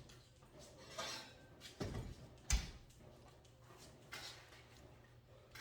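A few knocks and scrapes of an oven door and cookware being handled. The loudest is a sharp knock about two and a half seconds in.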